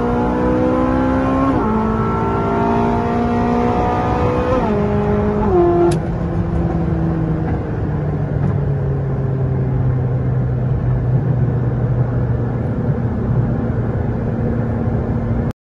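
Ferrari 458 Speciale's V8 through a catless Fi Exhaust race-version valvetronic system, heard from inside the cabin: it accelerates through the gears, its pitch climbing and dropping sharply at each of several quick upshifts in the first six seconds. Then it settles into a steadier, lower drone that eases slowly down as the car cruises, and the sound cuts off suddenly near the end.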